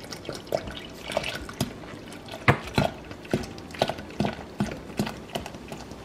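Carbonated soda (Sprite) pouring from a plastic bottle into a plastic pitcher of strawberry lemonade, glugging in short pulses every third to half second over a fizzing splash as the pitcher fills.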